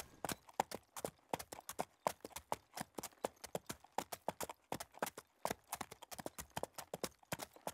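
Horse hooves clip-clopping at a steady walk, a long even run of sharp hoofbeats.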